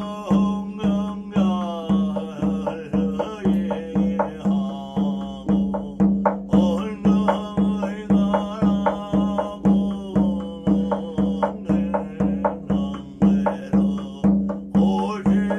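A voice chanting Korean shamanic scripture (gyeongmun) in a steady rhythm over evenly struck drum beats, about two beats a second.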